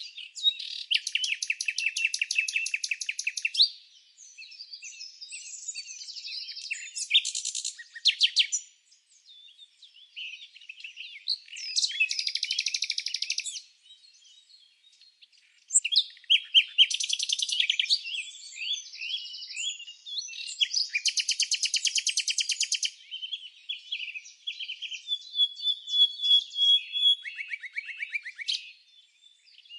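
Songbirds singing, with fast buzzy trills every few seconds and shorter chirps and whistled notes between them.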